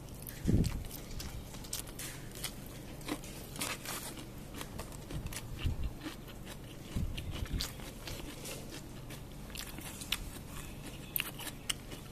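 A person chewing and crunching food close to the microphone, with irregular small clicks and crackles over a faint steady low hum.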